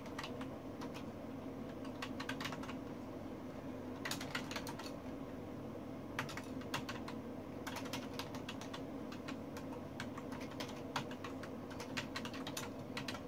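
Typing on a computer keyboard: quick runs of key clicks with short pauses between them, over a steady low hum.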